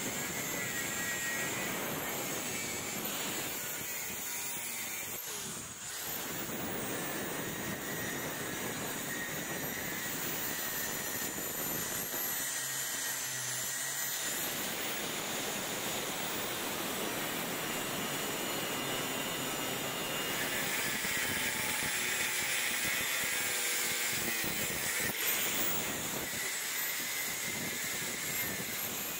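A 125 mm angle grinder cutting into the steel of a railroad track rail: a steady high whine with the hiss of the disc biting the metal. It dips briefly about six seconds in.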